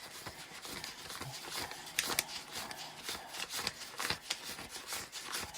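Paper banknotes, a stack of one-dollar bills, being counted by hand: a quick, uneven run of crisp flicks and rustles as each bill is slid off the stack.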